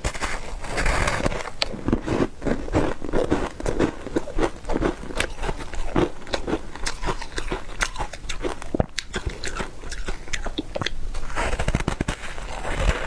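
Foam ice being bitten and chewed close to the mouth: a dense run of sharp, crackly crunches, with fresh bites near the start and near the end.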